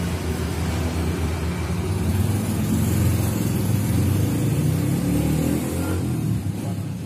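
A motor vehicle engine running steadily, swelling a little in the middle.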